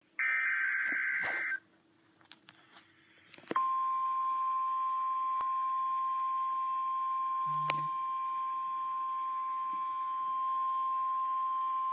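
NOAA Weather Radio alert signal: a buzzing burst of SAME digital header data, about a second and a half long, then after a short pause the steady single-pitch 1050 Hz warning alarm tone starts about three and a half seconds in and holds. The tone marks a warning broadcast about to be read.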